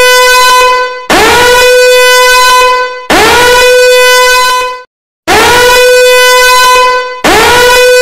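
Danger alarm horn sounding in repeated blasts of about two seconds each. Every blast swoops up in pitch at the start and then holds one steady tone, and there is a brief silence about five seconds in.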